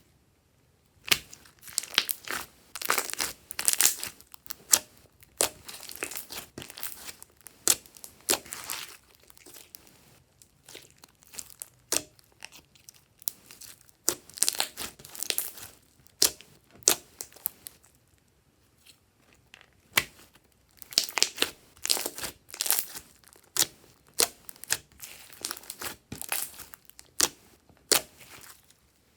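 Hands squishing, folding and stretching glossy slime, making runs of sticky, wet crackles and pops in bursts. There are short lulls about ten and about nineteen seconds in.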